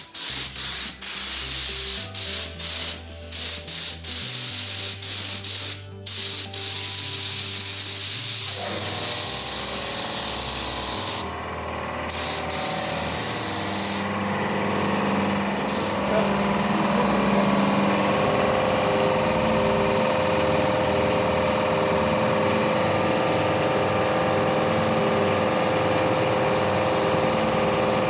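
Paint being sprayed onto a wheel, a loud hiss in repeated bursts broken by short pauses, easing off after about sixteen seconds. Background music plays underneath.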